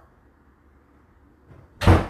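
A single sudden thump near the end, with a low boom under it.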